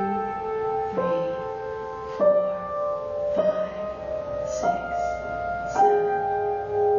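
Slow, calm melody played one note at a time on a piano-like keyboard instrument, a new note struck about every second and each left to ring on.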